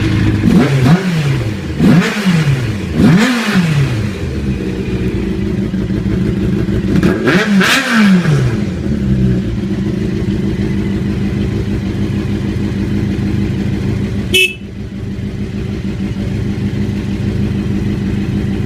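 1987 Honda CBR600F Hurricane's liquid-cooled inline-four, just started, is blipped four times, each rev rising and falling back, then settles into a steady idle. There is a brief sharp click about fourteen seconds in.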